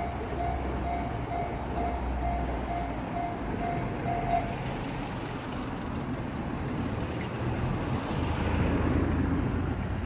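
Level crossing alarm ringing its repeated electronic clang about twice a second over a low rumble, then stopping about four seconds in. Road traffic follows, growing louder near the end as vehicles pass over the crossing.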